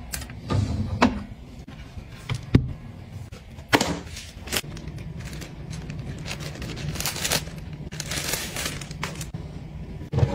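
Handling sounds: a few sharp clicks and knocks of items and a wire organizer basket. Then, from about the middle, a clear plastic bag crinkling and rustling as a quilted fabric pouch is unwrapped, over a steady low hum.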